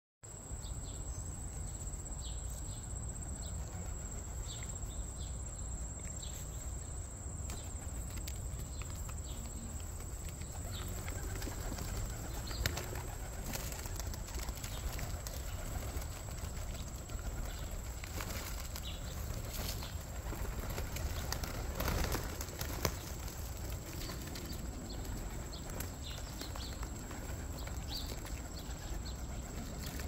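Feral rock pigeons flapping their wings as they jostle for seed, short flurries of wing claps that come more often in the second half and are loudest about two-thirds of the way through, over a steady low rumble.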